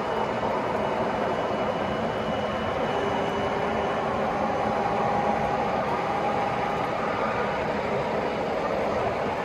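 Three-rail O gauge model trains running on the layout: a steady rolling rumble of wheels on track with a faint motor hum, unchanging throughout.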